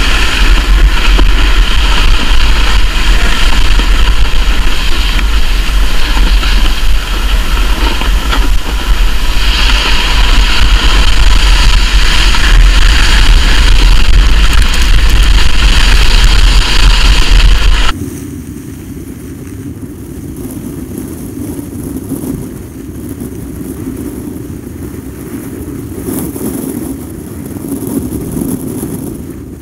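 Wind buffeting the camera and snow hissing under a ski patrol rescue toboggan towed downhill at speed, loud and steady. About 18 seconds in the sound drops suddenly to a much quieter, lower sliding rush.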